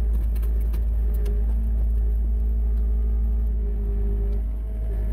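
Engine of a yellow hydraulic machine running steadily at low speed as it creeps forward, a deep rumble with a steady hum. Its note shifts slightly near the end.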